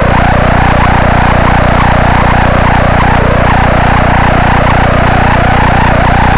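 Loud, garbled audio from a malfunctioning onboard camera on a radio-controlled model plane. It is a steady buzz with a short rising chirp that repeats about twice a second.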